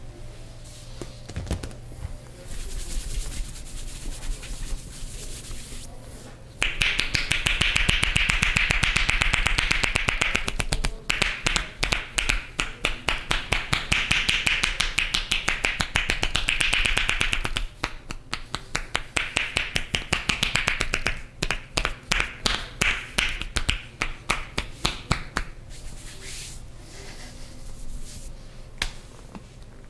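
Fast percussive massage strokes: hands chopping and slapping on the head and back with loose fingers clicking together. They make a rapid stream of sharp snaps that comes in several runs with short breaks between. The runs start about a fifth of the way in and stop a few seconds before the end, with lighter taps on either side.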